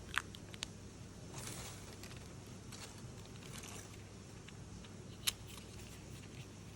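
Unboxing handling: soft rustles of packaging and a few sharp clicks or taps, the loudest a little over five seconds in, over a low steady hum.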